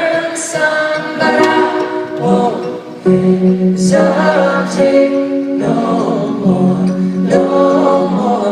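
Live pop music: several voices singing together over band accompaniment.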